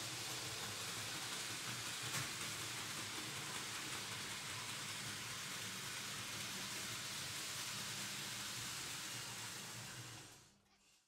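Märklin H0 model trains with BR50 locomotives running on Märklin M-track: a steady rushing rattle of wheels on the pressed-metal track, with one light click about two seconds in. The sound fades out near the end.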